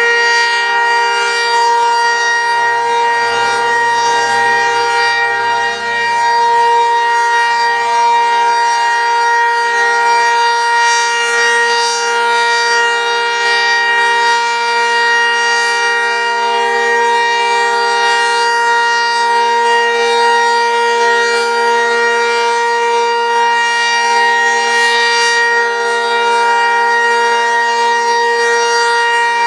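Outdoor tornado warning siren sounding a loud, steady tone that holds one pitch without winding up or down.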